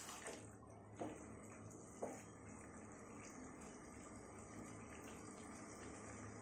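Red silicone spatula stirring a wet jackfruit and prawn curry in a metal pan: faint wet stirring and scraping, with soft knocks against the pan about a second and two seconds in.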